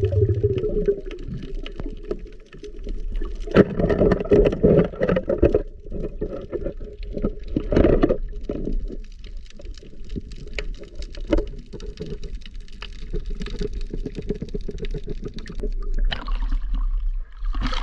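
Water splashing and sloshing in irregular bursts, with the strongest splashes about four and eight seconds in.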